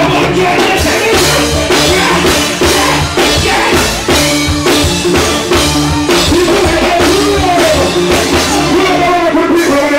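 Reggae music with a steady drum beat and a bass line, and a singing voice over it.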